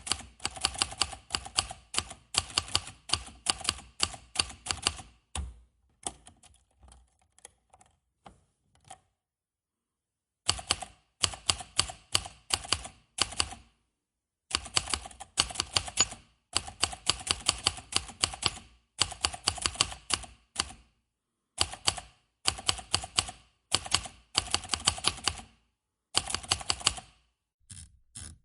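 Manual typewriter keys striking in quick runs of typing, many sharp clacks to a burst, with short pauses between runs and a longer silent pause about nine seconds in.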